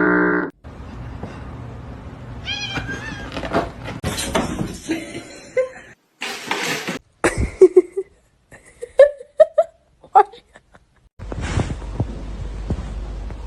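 Cats meowing: several short meows that bend up and down in pitch, come in separate bursts and are broken by stretches of noise.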